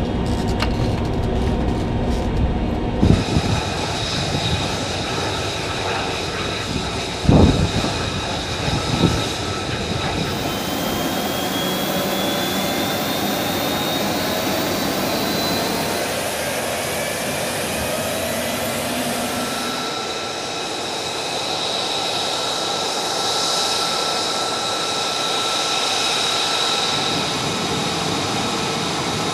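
F-35 fighter's jet engine running on the ground, a steady whine with several high held tones and a tone that slowly rises around the middle. A few loud thumps come in the first ten seconds.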